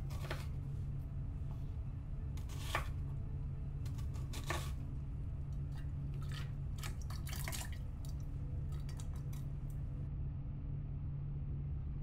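Chef's knife cutting a red onion on a wooden cutting board, then onion pieces pushed into a glass jar of brine: a string of separate clicks and knocks over a steady low hum.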